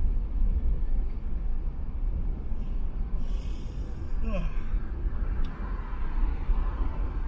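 Car driving at expressway speed: a steady low rumble of tyre and wind noise. A brief hiss comes about three seconds in, and a short gliding tone just after four seconds.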